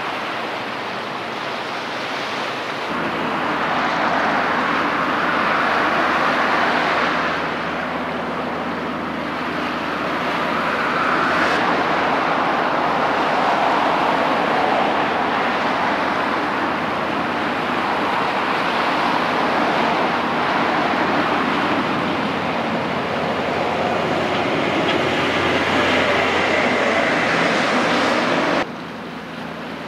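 Passing 200 m container ship: the rushing hiss of its bow wave, swelling and easing every few seconds, over a steady low drone from its engine that sets in about three seconds in. The sound drops off abruptly near the end.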